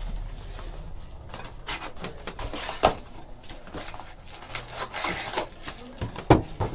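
Trading card boxes and packs being handled and opened on a table: rustling of wrapper and cardboard, with a few sharp knocks, the loudest a little after six seconds in.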